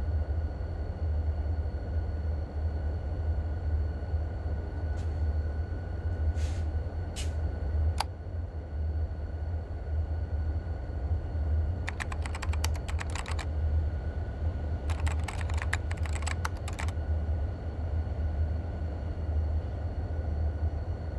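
Steady low hum with a faint high whine over it, broken by a few single clicks and, around the middle, two runs of rapid clicking.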